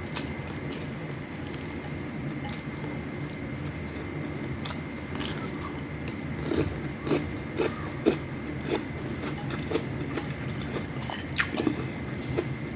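Close-miked chewing and crunching of fried food with rice, in short crisp bites that come thicker in the second half. A steady low hum runs underneath.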